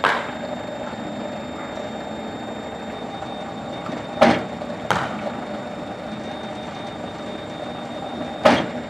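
Cricket ball knocking off the bat and the hard pitch in net practice: a sharp knock at the start, two knocks about half a second apart around four seconds in, and another near the end, over a steady background hiss.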